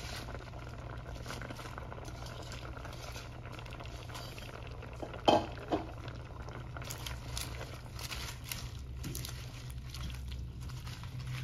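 Cream sauce with chicken and spinach simmering and bubbling in a stainless steel pot, over a steady low hum. There are two sharp knocks about five seconds in. From about seven seconds in, a wooden spoon stirs the leaves through the sauce.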